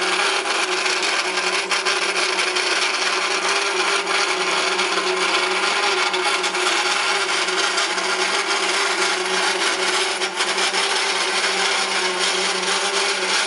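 Ducom TR-201 pin-on-disc wear and friction tester running: the drive motor's steady hum under a continuous hiss of the pin rubbing on the spinning disc during a wear test.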